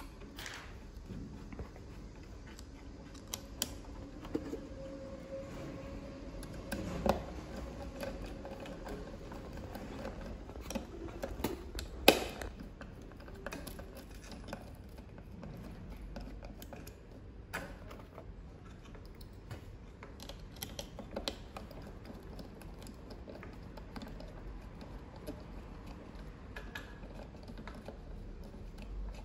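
Scattered small clicks and taps of hand assembly: a hand screwdriver turning screws into a plastic and metal ESC housing on a carbon-fibre drone motor arm, with a sharper knock about 12 seconds in.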